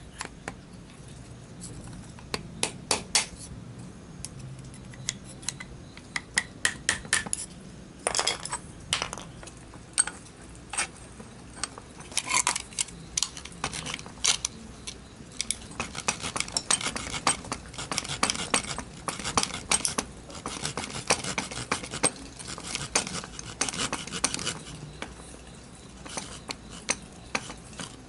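A screwdriver and pick working at a metal valve part clamped in a bench vise: a run of sharp metal clinks, clicks and short scrapes in irregular clusters, coming thicker from about halfway in.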